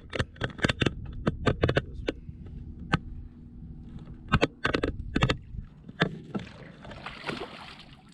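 Irregular sharp knocks and clatter on a fishing boat, over a low steady hum, with a short stretch of hiss about seven seconds in.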